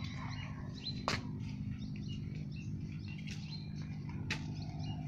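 Small birds chirping and twittering, with a few sharp knocks of the bamboo stick against the concrete path, the loudest about a second in.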